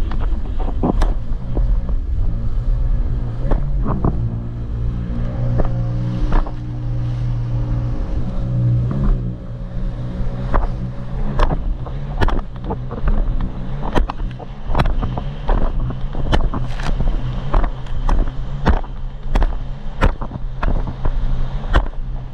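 Jet ski engine running at speed, a steady hum under heavy low wind rumble, its tone strongest for a few seconds near the middle. Frequent sharp slaps and knocks come thicker in the second half.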